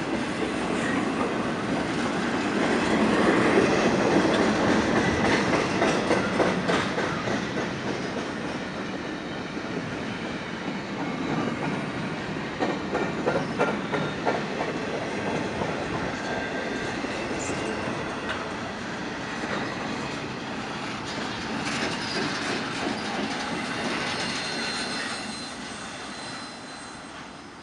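Double-stack container well cars of a freight train rolling past, the wheels clicking over rail joints with a faint occasional squeal. The rumble is loudest a few seconds in and fades near the end as the train moves away.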